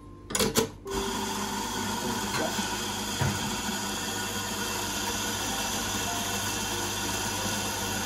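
Two sharp clacks as the portafilter is seated in the grinder's holder. Then the Victoria Arduino Mythos espresso grinder's motor runs steadily, grinding coffee straight into the portafilter.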